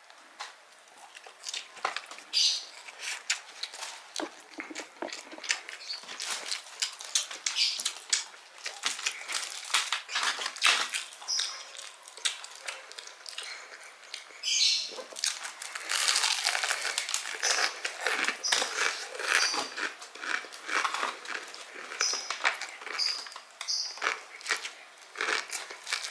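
A person chewing and crunching crispy Indonesian fried chicken with kremes crumbs. The wet chewing and crisp crackles come thick and irregular, without a break.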